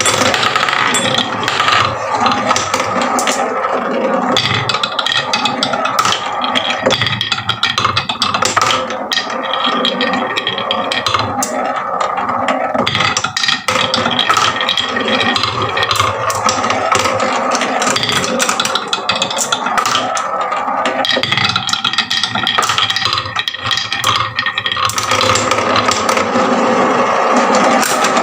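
Many marbles clattering down a wooden marble run: a dense, continuous stream of clicks and rattles.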